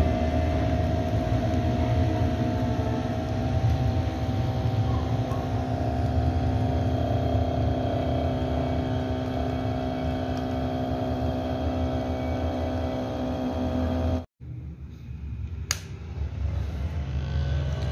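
DC motor of a homemade table saw running with no load, a steady whine over a low rumble as the blade spins freely. The sound drops out for a moment about 14 seconds in, a sharp click follows, and near the end the whine rises as the motor speeds up again.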